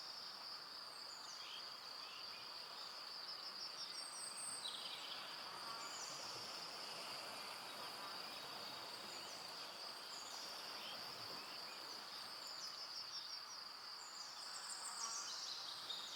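Evening forest ambience: a steady, high-pitched chorus of insects, with short high chirps coming and going over it.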